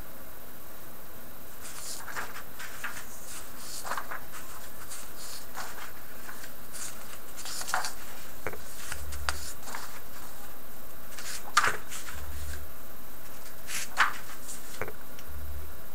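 Logitech S510 rubber-dome keyboard giving scattered, irregular soft clicks and knocks, a key or two at a time rather than steady typing, over a steady hiss.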